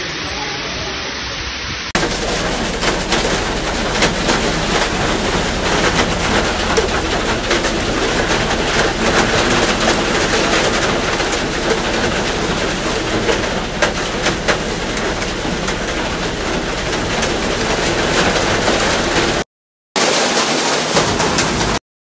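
Water pouring down a flight of underpass stairs, then, from about two seconds in, a dense clatter of hailstones hitting window glass over a steady rush of rain. It drops out briefly and cuts off just before the end.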